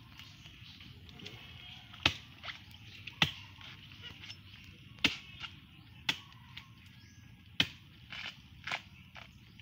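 Chopping strokes into a rotting palm trunk, dug open for beetle grubs: about five sharp, loud hits a second or so apart, with lighter knocks and crumbling between.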